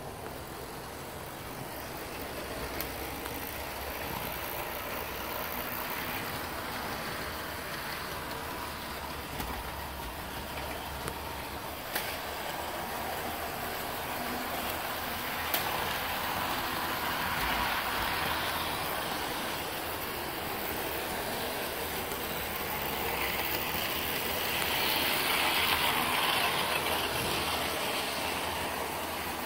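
Model train locomotives running on a DC layout: a steady whirring of motors and wheels on the rails that swells louder twice in the second half as a train passes close. Two sharp clicks a little under halfway through.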